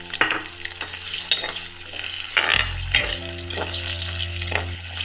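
Cubed raw potatoes frying in hot oil in an aluminium kadhai, sizzling steadily while a spatula stirs them, scraping and knocking against the pan every second or so.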